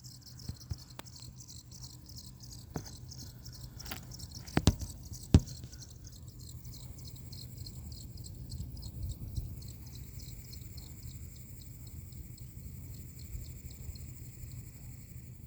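Lian Li TL LCD 120 mm PC fan squeaking at low speed, the intermittent fault it is being recorded for: a rapid, rhythmic high chirping over a low hum, which about six seconds in turns into a steady high whine. Two sharp knocks, the loudest sounds, come about four and a half and five and a half seconds in.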